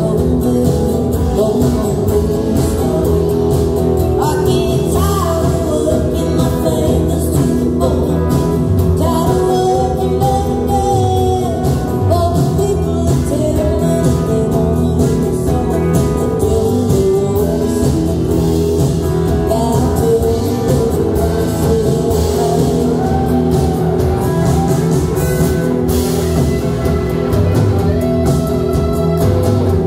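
Live country-rock band playing loud and steady: a woman singing lead over acoustic guitar, electric guitar and drums, heard from the audience.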